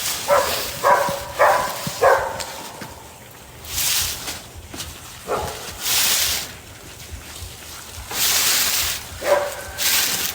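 Short animal calls: four in quick succession in the first two seconds, then single ones about five and nine seconds in, with bursts of hissing noise between them.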